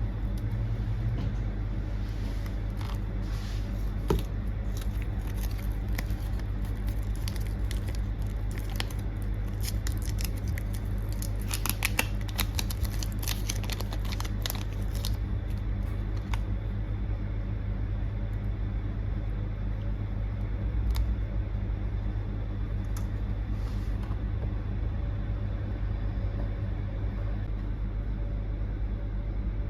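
Small sharp clicks and taps, likely hand tools on a phone under repair, sparse at first and then a quick flurry about twelve to fifteen seconds in, over a steady low hum.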